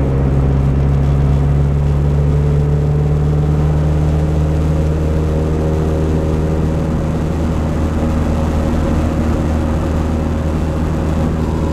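Dodge Neon SRT-4's turbocharged 2.4-litre four-cylinder engine running at a steady cruise, heard from inside the cabin as a constant engine drone under road rumble.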